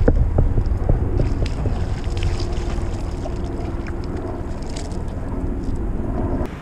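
Wind buffeting the action camera's microphone over water lapping at a kayak hull, with a quick run of light clicks in the first second as the fishing reel is cranked to bring in a fish.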